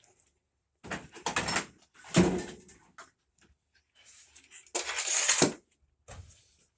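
Metal washer parts being handled and moved: three short bursts of rattling and scraping, the second with a low clunk.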